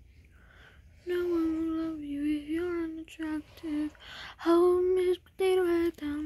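A girl singing a tune in held, fairly level notes broken by short pauses, with no clear words, starting about a second in.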